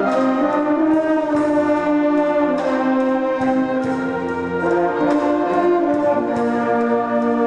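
A concert wind band playing, with brass holding full sustained chords that shift every second or two, over a steady beat of short percussion hits.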